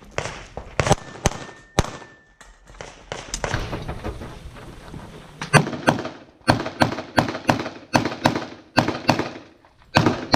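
Handgun shots fired in quick succession during a USPSA stage: a few shots in the first two seconds, a pause of about three seconds, then a rapid string of a dozen or so shots, several a second, from about five and a half seconds in.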